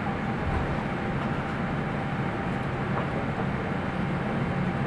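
Steady cabin noise of a Boeing 787-8 Dreamliner taxiing: a low hum under an even rushing noise, unchanging throughout.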